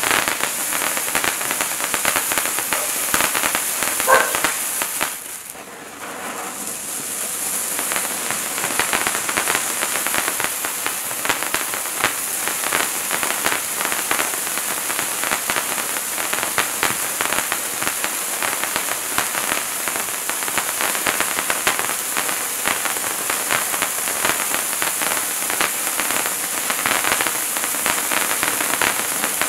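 Hand-held firework fountain (a Wizards Wand) burning with a steady crackling hiss of sparks. About five seconds in it dies down briefly, then builds back up and burns on.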